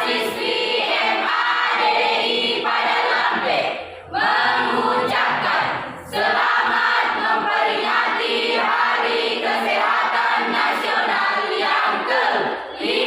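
Youth choir singing together, with short breaks in the singing about four and six seconds in.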